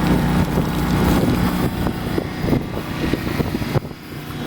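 Kohler gasoline marine generator running steadily with no electrical load, with its exhaust discharging from the side of the hull. The level drops briefly near the end.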